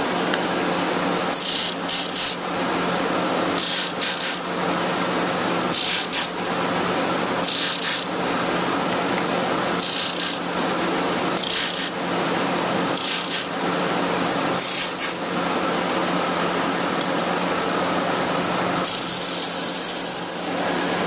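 Disc sander running with a steady hum, and a short hiss of abrasive on wood each time a wooden coaster's corner is pressed against the sanding disc, about every second or two, rounding the corners, with one longer pass near the end.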